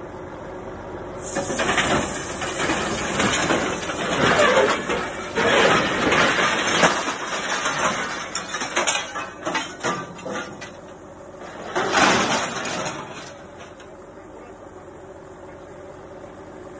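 Crumpled scrap aluminium sheet scraping, crackling and rattling in loud irregular bursts as it is pulled out of the trailer load, with one last burst after a short lull. A steady low background hum runs underneath.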